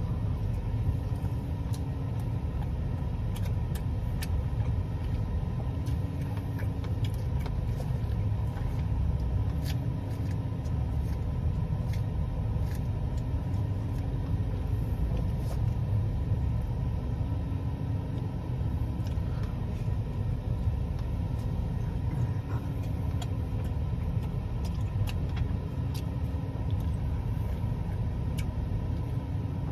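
Steady low rumble of an idling vehicle engine, with faint scattered clicks over it.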